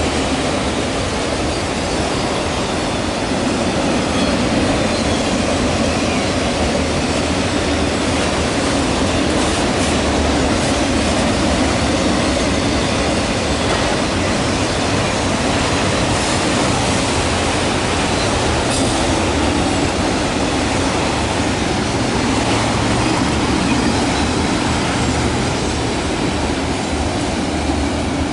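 Freight train of autorack cars passing fast at close range: a steady, loud rumble and rattle of steel wheels on the rails.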